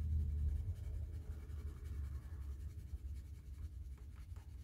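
Castle Arts colored pencil scratching quickly back and forth on paper as a swatch square is shaded in, over a low steady hum.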